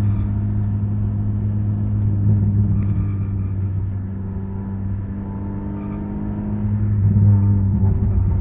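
Honda Civic EG6 VTi's 1.6-litre four-cylinder engine droning steadily at cruising revs, heard from inside the stripped cabin over road noise. It swells slightly a couple of times.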